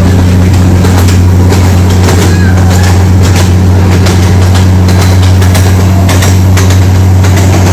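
A large vehicle engine running steadily with a constant low drone, with scattered clicks and rattles over it.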